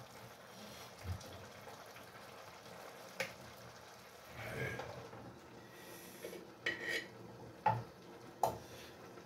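A metal spoon and a pan lid clinking against a frying pan on a gas stove: a handful of short, light clanks spread over several seconds, over a faint steady hiss.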